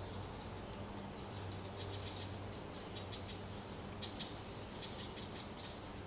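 Insects chirring: clusters of rapid, high, rattling ticks that come and go, with a faint steady low hum underneath.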